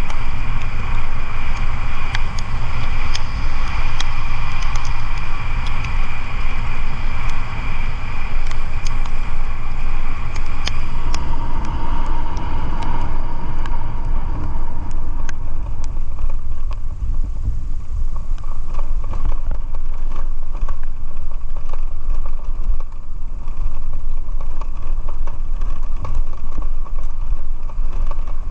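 Steady road noise from a moving vehicle, with a heavy low rumble throughout.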